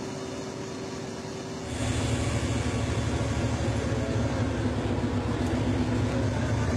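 Narrow-gauge train running: a steady low rumble that suddenly gets louder a little under two seconds in and stays that way.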